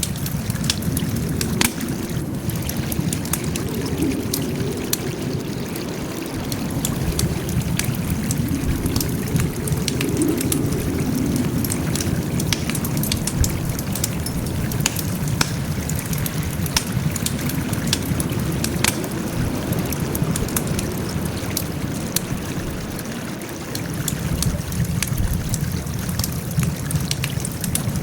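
Wood fire crackling: many irregular sharp pops and snaps over a steady low rumble of burning.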